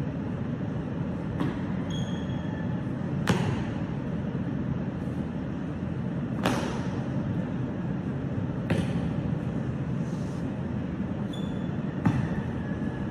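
Sharp slaps and stamps from a Changquan wushu routine: hands smacking the feet and body on kicks and strikes, and feet striking the hard floor, about half a dozen times with a short echo after each. A steady room hum runs underneath.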